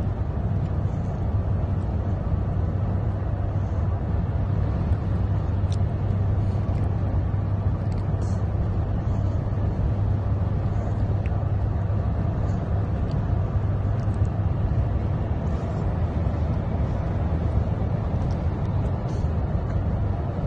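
Steady low drone of a car on the move, heard from inside the cabin, with a few faint ticks now and then.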